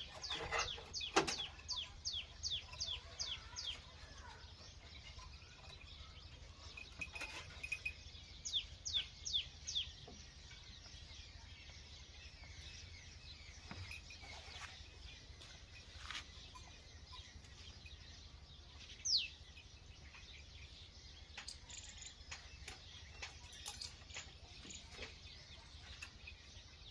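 A small bird chirping in quick runs of sharp, high, downward-sliding notes, about two a second, then single chirps later on, over faint low background noise.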